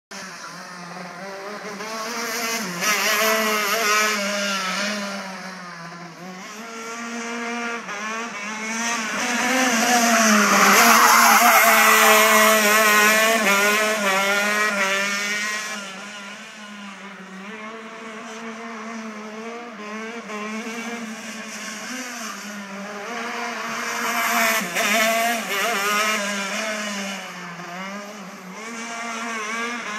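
A 125 cc two-stroke gearbox racing kart engine, revving up and down through the corners as it laps, its pitch rising and falling with each change of throttle and gear. It swells loudest as the kart passes close about ten to thirteen seconds in, fades as it moves away, and grows louder again near the end.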